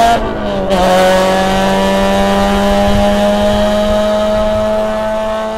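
Honda Civic EG6 engine pulling hard under acceleration. Its pitch drops briefly just after the start as it shifts up, then climbs slowly and steadily through the next gear, and the sound fades near the end.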